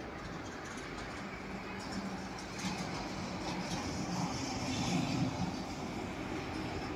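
A vehicle engine running, a low hum over steady outdoor noise that swells from about two seconds in, peaks around five seconds, then eases off.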